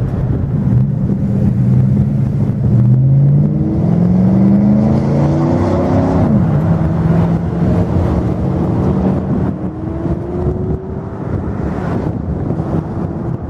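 A road vehicle's engine accelerating, its pitch climbing in steps as it goes up through the gears, then dropping sharply as it passes about six seconds in; a steady rumble and wind on the microphone run underneath.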